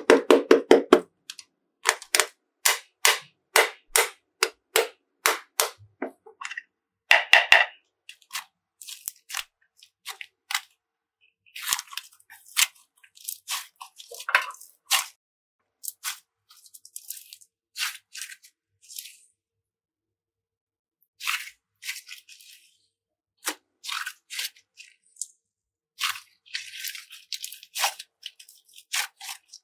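Sharp clicks and taps, about two or three a second, for the first six seconds. Then irregular crackling and crunching, with short pauses.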